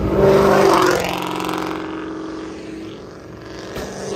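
A car accelerating past, its engine loudest in the first second and then fading as it pulls away. Another engine begins to rise near the end.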